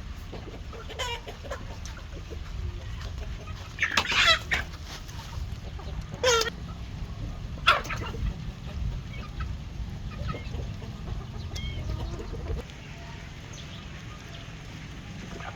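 Backyard hens clucking as they feed, with three louder, sharper calls about four, six and nearly eight seconds in.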